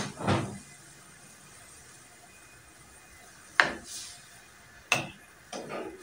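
Short clinks and knocks of metal kitchenware: a few knocks at the start as a bowl is put aside, then a metal ladle clinking against the aluminium cooking pan a few times in the second half.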